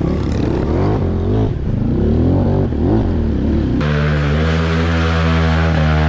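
Trail motorcycle engine revving in repeated rising and falling blips, then held steady at high revs for the last two seconds or so.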